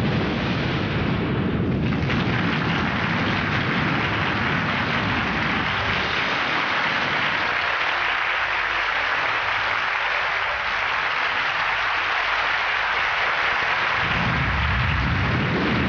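Large studio audience applauding, a dense steady clatter of clapping, with a deep rumble underneath at first and again near the end.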